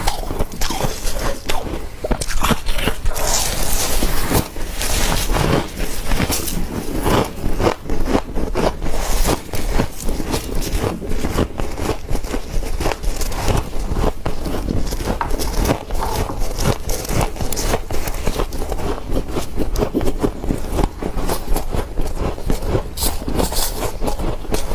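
Soft freezer frost being bitten, crunched and scraped, a dense run of crisp crackling clicks.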